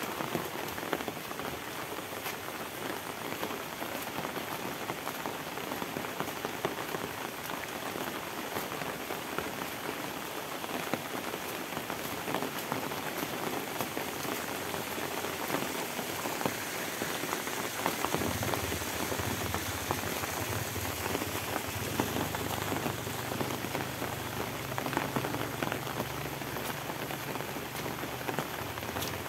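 Steady rain falling, with many separate drops ticking through an even hiss. A low steady rumble joins about two-thirds of the way through.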